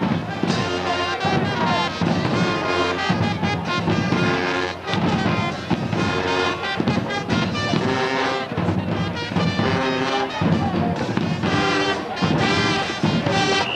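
Brass band music, with trumpets and trombones prominent, playing a lively tune in short repeated phrases.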